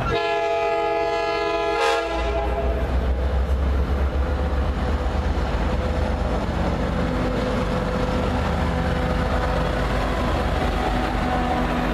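Tri-Rail commuter train's diesel locomotive sounds one horn blast of about two seconds, then runs past close by with a heavy low engine rumble and the rolling of its bilevel coaches.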